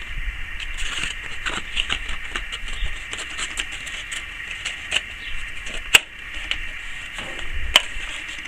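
Scattered clicks and rustles of hands swapping the sanding belt on a belt sander that is switched off, with two sharper clicks in the second half.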